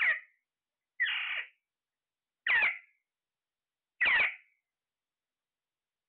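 Caged Alexandrine parakeets giving short, shrill squawks that fall in pitch, four in turn roughly every second and a half; the second one is longer and flatter.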